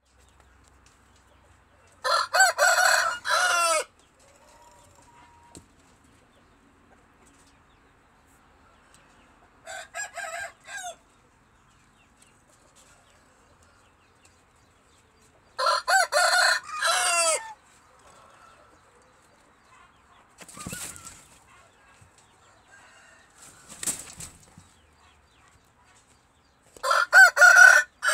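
Roosters crowing: four crows of about two seconds each, spread roughly ten seconds apart, the second one fainter. Two brief scuffling noises come between the last two crows.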